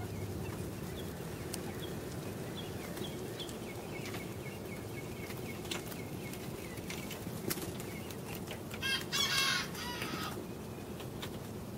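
Serama bantam chickens, with a few soft high chirps early on and then one short, high-pitched crow from the cockerel lasting about a second and a half, about nine seconds in.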